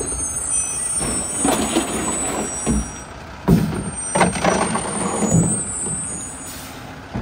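A split-body rear-loader garbage truck runs at the curb while recycling bins are tipped and cardboard is thrown into its hopper: irregular clattering and rustling of recyclables landing, with sharp knocks, the loudest about three and a half seconds in.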